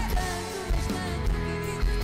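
Live pop-rock band playing: electric guitar, bass and drums with a steady beat, and a woman singing.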